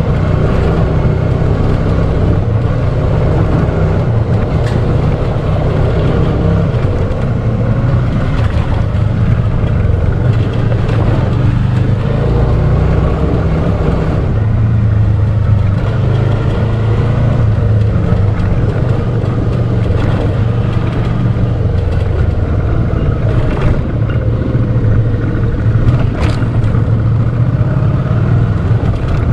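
Dual-sport motorcycle engine running while riding, its pitch shifting up and down every few seconds with the throttle, with a few sharp knocks.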